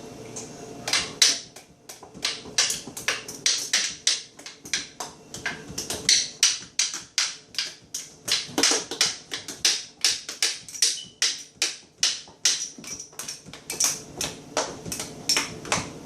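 A toddler drumming on a refrigerator: a run of quick, uneven taps and knocks, about three a second, starting about a second in.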